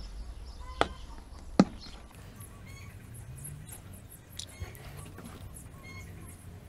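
Two sharp clicks in the first two seconds, the second one louder, then faint short bird chirps over a low background hum.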